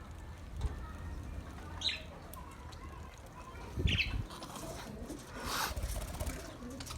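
Birds giving short high chirps, one about two seconds in and another near four seconds, with rustling and wing flapping in between.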